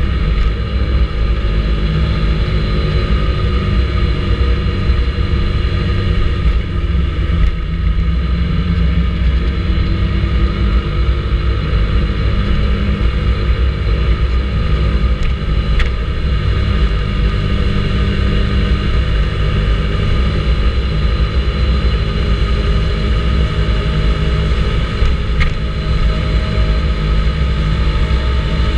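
Vespa GTS 300 ie scooter's single-cylinder four-stroke engine running at a steady cruise, with a strong low wind rumble on the action camera's microphone.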